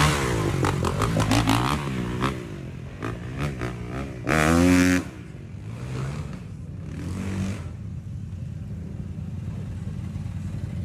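Off-road engines, a dirt bike and ATVs, revving up and down in the mud, with a short loud rev about four seconds in, then settling to a steady lower running sound near the end.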